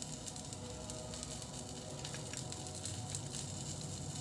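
Faint, steady low room hum with a few soft clicks of a metal spoon as thick tzatziki sauce is scooped from a tub and dabbed onto a bowl of food.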